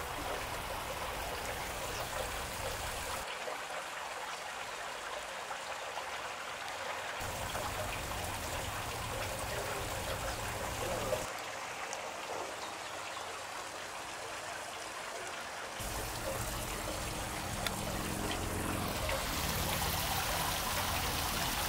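Water trickling steadily along a shallow, winding artificial channel.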